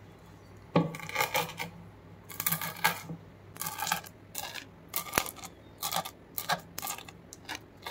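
Green chillies being crushed on a wooden chopping board with a round hand-held stone: about a dozen irregular knocks, roughly one or two a second, some with a short ring.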